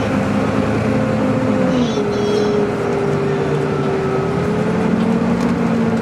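On board a Volvo B9TL double-decker bus under way: the engine runs with a steady, high whine (the 'hoovering' sound) over a rumble. The whine steps down in pitch about two seconds in, then slowly climbs again.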